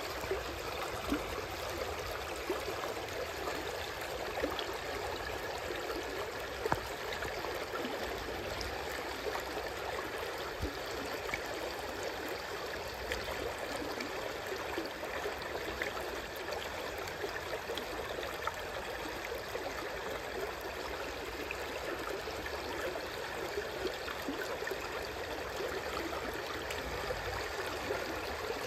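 Shallow river water flowing over a low, just-submerged stone weir and around stacked stones: a steady rushing and babbling with a few sharper splashes.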